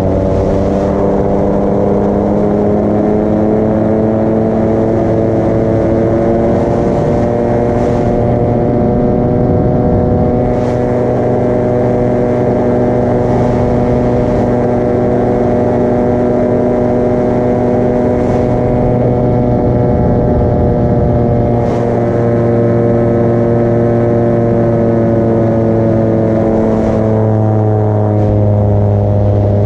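Paramotor engine and propeller running steadily, its pitch shifting slightly a couple of seconds in and again near the end.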